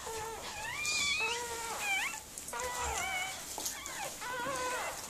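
Newborn miniature pinscher puppy crying: a string of short, high squeals one after another, several rising sharply in pitch.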